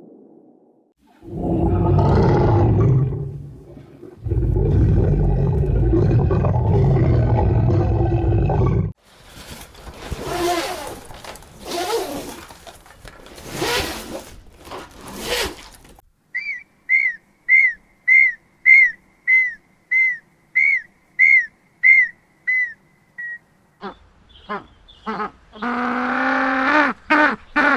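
A string of different animal calls. First two long, low roars, then several seconds of harsh rasping calls, then a run of about fourteen short, high chirps at roughly two a second, and near the end a drawn-out pitched call.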